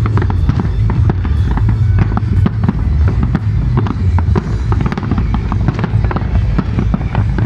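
A fireworks display: aerial shells bursting in rapid succession, a dense run of bangs and crackles over a continuous low rumble.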